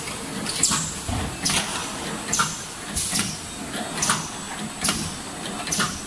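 Automatic bowl-can filling and seaming machine running, a short sharp stroke repeating a little more often than once a second over a steady low hum as the star wheel indexes the cans through the filling and sealing stations.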